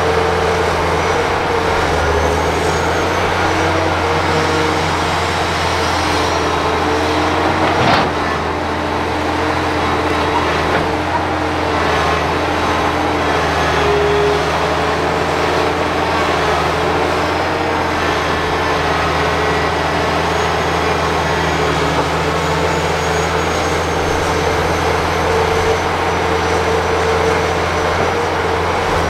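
Large Hitachi hydraulic excavator's diesel engine running steadily under working load, a deep hum with a few steady tones that shift slightly as it digs and swings. There is one sharp knock about eight seconds in.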